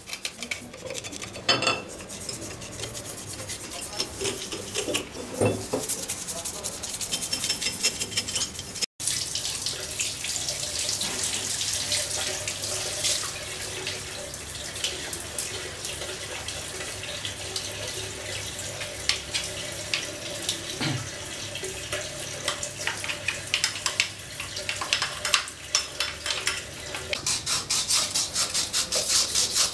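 Metal scraping and clinking as a screwdriver works inside the piston bore of a car disc-brake caliper. Then a tap runs steadily as the caliper is rinsed under it. Near the end come scrubbing and clinks as it is worked on by hand.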